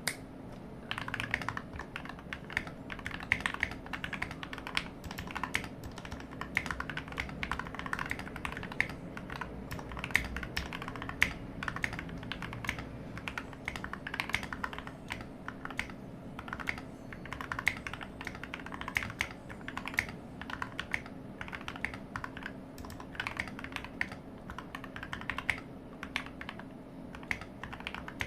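Typing on a modded Skyloong SK64S optical mechanical keyboard: a fast, irregular stream of keystroke clicks that starts about a second in.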